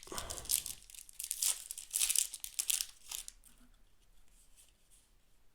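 Foil wrapper of a trading-card booster pack tearing and crinkling in a run of scratchy bursts for about three seconds, then only faint handling.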